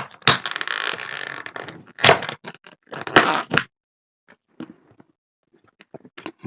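Scraping, rustling handling noise, most likely the food or its container being moved and handled: one long stretch of about a second and a half, two shorter bursts after it, then a few faint clicks.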